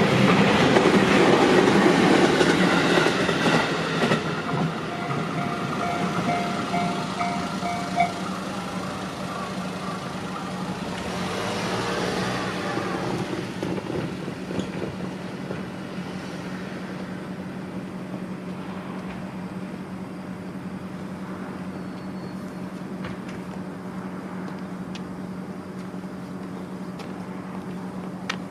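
Electric train on the JR Tokaido Main Line passing over a level crossing, loudest in the first few seconds, while the crossing's electronic warning bell rings. The bell cuts off about eight seconds in as the crossing clears. A weaker swell of passing noise follows around twelve seconds in, over a steady low hum.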